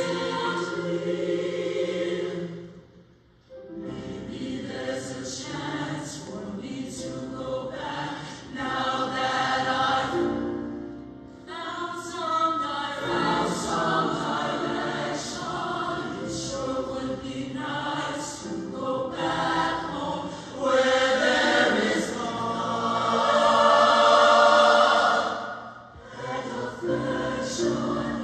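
A large show choir singing together. There is a short break about three seconds in, and the singing swells to its loudest near the end before dropping back.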